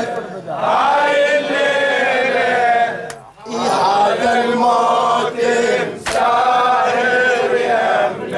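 A man's solo voice chanting a Shia Muharram lament in Arabic, holding long, wavering melismatic notes in two phrases, with a short pause for breath about three seconds in.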